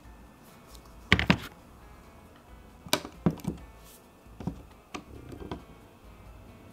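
An iPhone 15 Pro Max knocking against its hard plastic screen-protector installation tray as it is handled. A quick cluster of sharp knocks comes about a second in, the loudest part, followed by several lighter taps and clicks over the next few seconds as the phone is set into a plastic stand.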